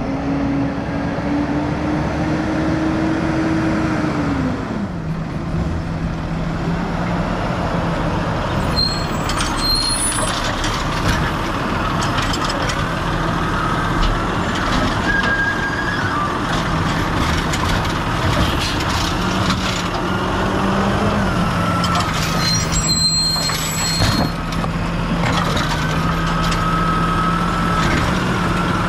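Automated side-loader garbage truck's diesel engine running as it drives up, its pitch rising, then dropping about four seconds in and settling low and steady. Air brakes hiss twice, around nine and twenty-three seconds in, and near the end a steady whine comes in as the hydraulic arm grips the cart.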